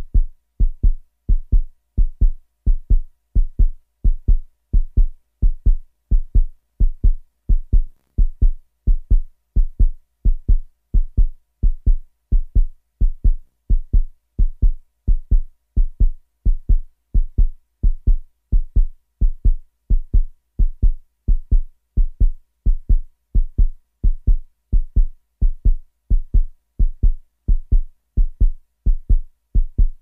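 Fast heartbeat sound effect: low thumps repeating in a steady, quick rhythm that does not change.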